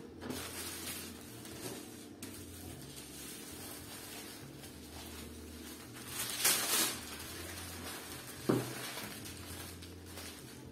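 Tissue paper rustling and crinkling as sheets are handled and smoothed flat on a wooden table, loudest about six and a half seconds in as a sheet is lifted, with a single short knock a couple of seconds later. A steady low hum runs underneath.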